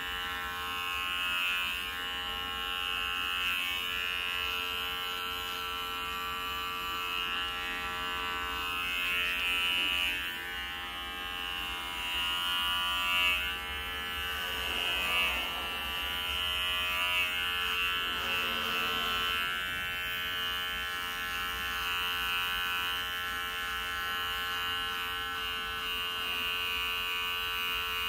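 Electric hair clippers buzzing steadily as they shave a head close, the tone wavering for a few seconds past the middle as the blades move through the hair.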